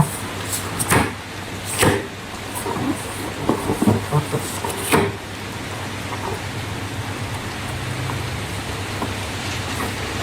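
Crafting handling noises: several sharp clicks and crackles in the first five seconds, then only a steady hiss with a low hum.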